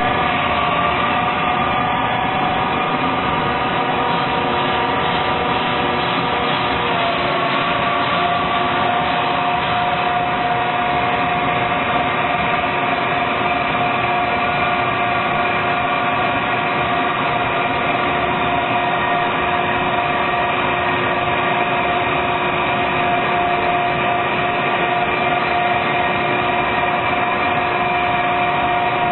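Grinding machine running steadily as it regrinds a lathe bed: a constant mechanical noise with several steady whining tones, which shift slightly about seven seconds in.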